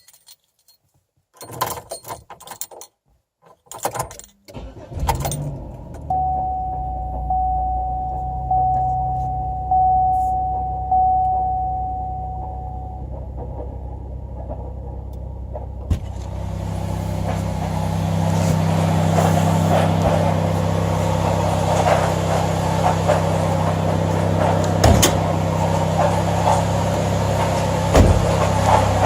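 Car keys jangling and clicking, then the car is started and its engine runs steadily while a dashboard warning chime dings about five times. About halfway through, a louder steady rasping, hissing noise joins the engine sound: the new noise the owner is asking about, cause unknown.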